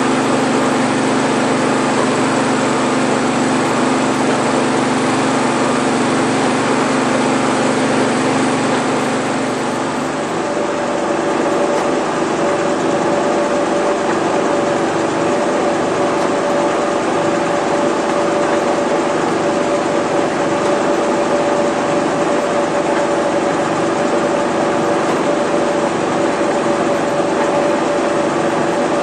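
Combine harvester running steadily in a wheat field, a continuous engine and machinery hum whose steady tones shift abruptly about ten seconds in.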